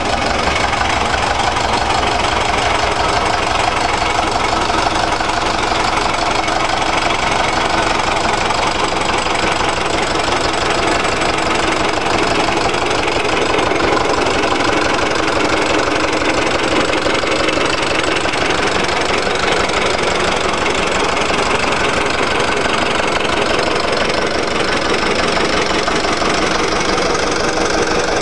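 Lister stationary diesel engine running steadily at constant speed, with an even beat of firing pulses.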